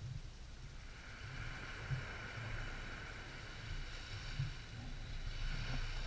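Small waves of a calm sea washing onto the shore, with wind rumbling on the microphone. The hiss of the wash builds about a second in and holds.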